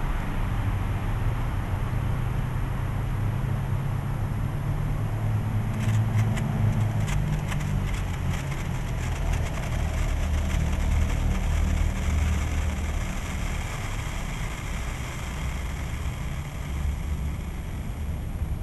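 Steady low rumble of road traffic, with faint quick crackles of a senko hanabi sparkler throwing sparks for a few seconds from about six seconds in.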